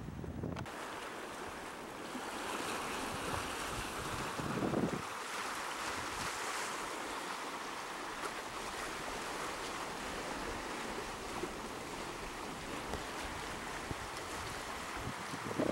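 Sea waves washing in a steady rush. Wind rumbles on the microphone in the first half-second and again briefly about five seconds in.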